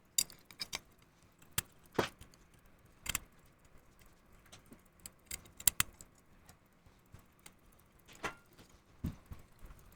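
Scattered small metallic clicks and taps as a pocket watch movement, its stem and crown are handled and fitted back into the case, irregular and a few seconds apart.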